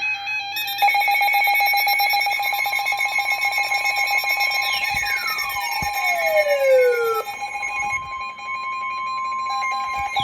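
Electronic emergency-alert tones: a steady two-tone attention signal with a buzzing pulsed tone under it for the first few seconds. A long falling swoop comes about halfway through and another starts right at the end.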